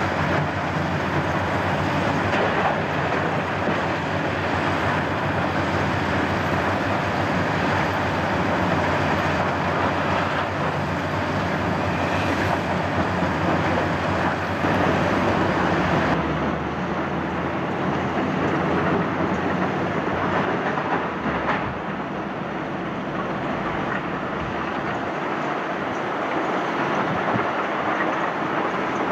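Mobile jaw crusher and screening plant running steadily: a continuous heavy rumble and rattle of rock passing through the machinery, over the drone of diesel engines.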